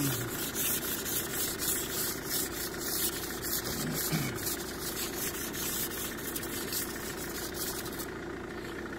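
Frost being scraped off a car's side window in quick, rasping strokes that stop near the end, over the steady hum of the car's engine idling.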